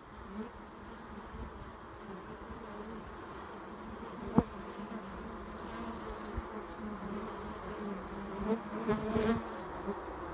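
A mass of honey bees buzzing at the entrance of their colony in a tree hollow: a steady, wavering hum that swells with louder close buzzes near the end. A single sharp tap sounds about four seconds in.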